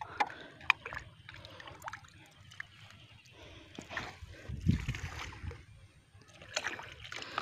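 Potassium permanganate solution thrown from a bucket splashing and sloshing onto the pond water, with small knocks and rustles of handling. The heaviest splashes come a little past halfway and near the end.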